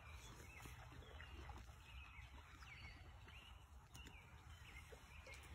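Near silence: faint outdoor background with a steady low rumble and a few faint, short bird chirps.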